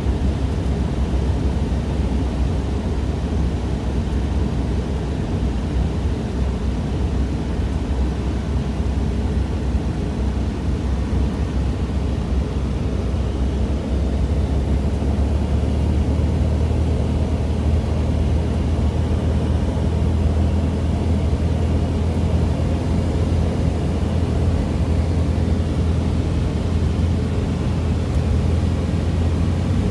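Cessna 172's piston engine and propeller droning steadily, heard from inside the cabin over a rushing noise. The low hum grows a little stronger about halfway through.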